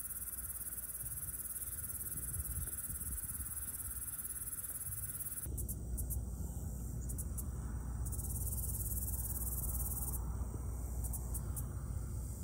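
Dusk chorus of crickets and other insects in a marsh: a steady high-pitched chirring, with a low rumble underneath. The sound shifts abruptly about five and a half seconds in.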